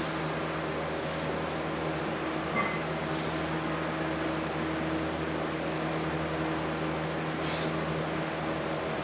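Steady ventilation hum with a low drone, with two short hisses, one about three seconds in and one late on.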